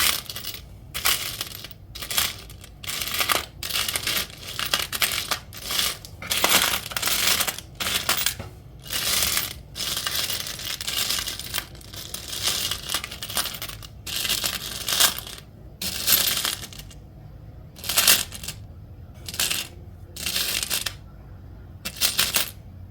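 Small metal charms clinking and jingling against each other as they are rummaged through by hand, in repeated short bursts with brief pauses between.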